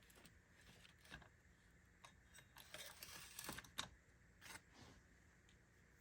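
Faint clicks and rustling of small switch parts being handled, with one sharper click a little before the four-second mark.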